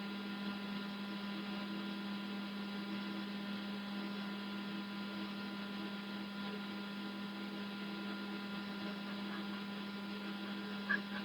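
Steady electrical hum of an Elegoo Centauri Carbon 3D printer's fans and motors as it runs automatic bed leveling before printing, with a few faint ticks near the end.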